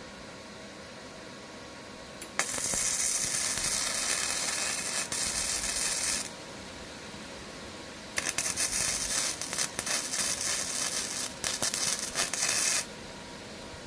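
Arc welder crackling in two runs of about four seconds each, with a pause of about two seconds between them, as weld beads are laid to join a broken steel mower handle.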